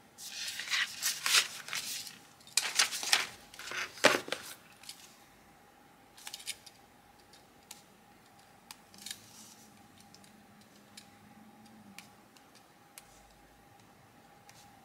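Paper rustling and scratching as a hand and pen move across a paper planner page, loud in two clusters over roughly the first four seconds. Then only faint scattered ticks and scratches of the pen writing on the page.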